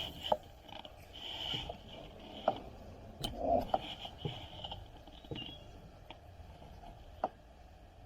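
Scattered light clicks and knocks from fishing gear being handled in a kayak, with faint high chirps repeating in the background.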